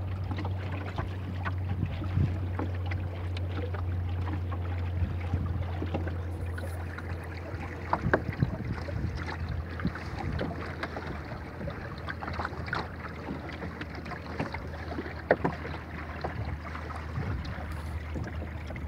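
Water slapping and lapping against the hull of a small wooden rowboat under sail, in many short irregular splashes over a steady low rumble of wind on the microphone.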